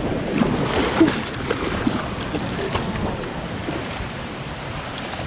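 Water of a shallow, rocky stream running and splashing around a Welsh corgi's legs as it wades, with a few sharper splashes about a second in.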